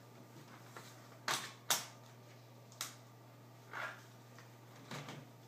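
Sharp plastic clicks and knocks from handling an Acer Aspire One netbook, five in all, the two loudest close together about a second and a half in.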